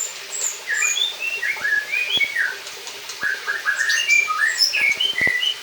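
White-rumped shama (murai batu) singing: a rapid, varied run of short whistled notes and chirps, with a few sharp clicks in between.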